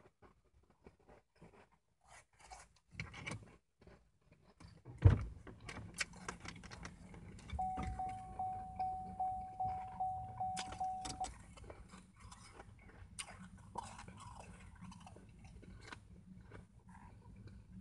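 Shaved ice crunched and chewed close to the microphone, with a spoon clicking and scraping in a plastic bowl. A sharp thump about five seconds in, and a beeping tone that repeats about twice a second for a few seconds in the middle.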